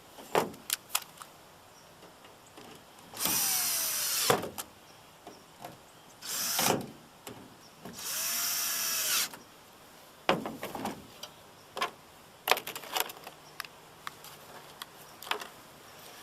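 Cordless drill run in three short bursts of about a second each, its motor whine sliding in pitch, with sharp clicks and knocks of handling between them. Typical of screws being driven to fasten a taillight housing back in place.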